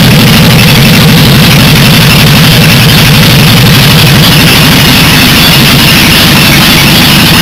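Jaguar 4.2-litre XK straight-six engine idling loud and steady through a short open exhaust pipe with no silencer, seconds after starting. The ignition timing is set close to spec, and the idle is even.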